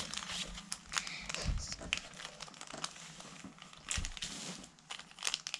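Small plastic accessory packets crinkling in the hands and being torn open: irregular crackling, with a louder crackle about four seconds in.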